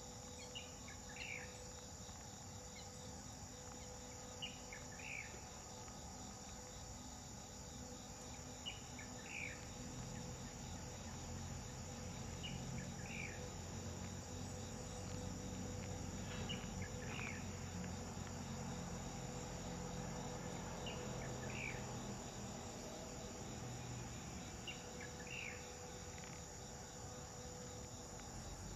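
Insects trilling steadily at a high pitch, with a short two-note call repeating about every four seconds. A low rumble rises for a while midway.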